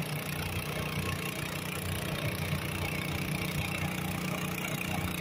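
Garden pulling tractor's engine running steadily under load as it drags a weight-transfer sled down the dirt track.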